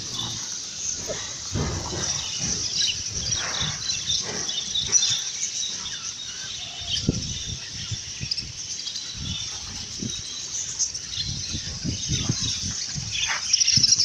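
A crowd of caged cockatiels and diamond doves chattering, a dense run of many small high chirps overlapping without a break. Low thumps and rustles come and go underneath.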